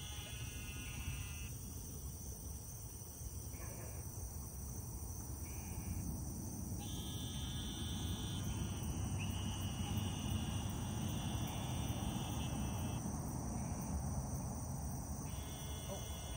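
Insects chirring in a steady high chorus, joined by a lower buzzing trill that switches on and off every second or two, over a low rumble.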